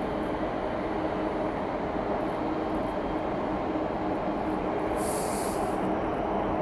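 Jet airliner engines running, a steady rushing noise with a held low hum. A brief high hiss comes about five seconds in.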